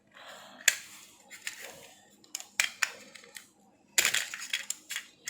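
Light clicks and scraping of a hand tool working at the padding inside an opened PS4 controller, prying it off near the charging port. The clicks come singly at first, then in a denser run of clicks and scratching about four seconds in.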